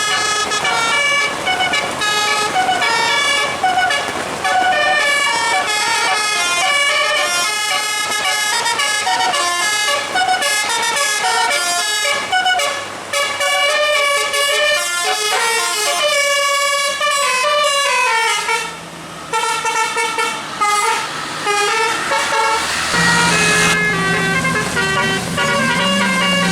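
Basuri-type 'telolet' musical air horn on a bus, its roof-mounted trumpets playing a fast melody of short stepped notes that ends in a falling run of notes. Near the end a steady low tone with a hiss takes over.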